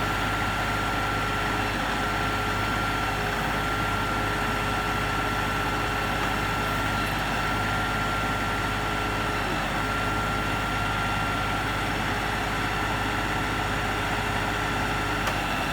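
LS XR3135 compact tractor's three-cylinder diesel engine running steadily, without revving, with a thin steady whine over the engine note.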